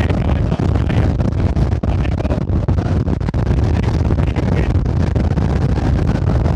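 Strong wind buffeting the microphone: a loud, steady low rumble with gusty, uneven noise over it.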